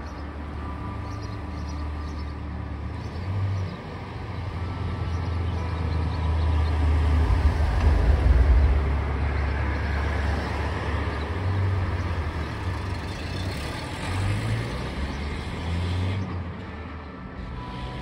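Road traffic passing close: vehicle engine and tyre noise with a deep rumble, swelling to its loudest about eight seconds in and then easing off. Church bell tones ring faintly beneath it.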